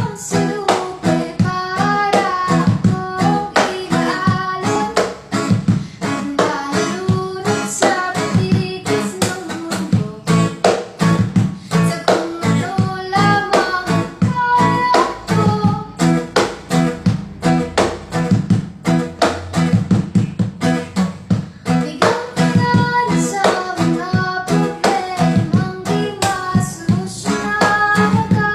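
Music: a song with guitar and a singing voice, the strings plucked in a steady rhythm.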